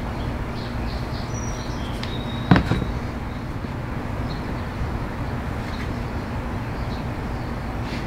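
A steady low background hum, with one sharp knock about two and a half seconds in, followed by a couple of lighter clicks, as parts are handled on the workbench.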